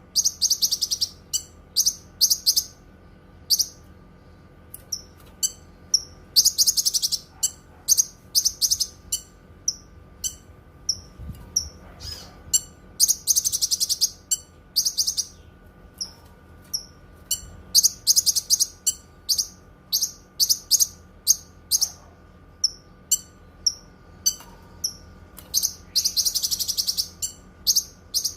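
Cucak kinoi singing: a steady run of short, very high-pitched chirps, broken every few seconds by dense fast trills lasting about a second.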